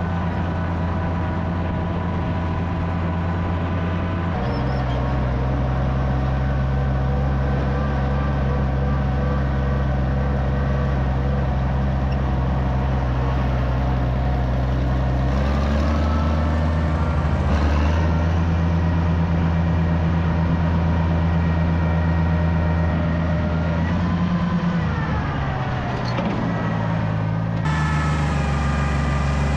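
Oliver farm tractor's engine running under way, its speed shifting a few times, slowing noticeably about 25 seconds in and then picking up again.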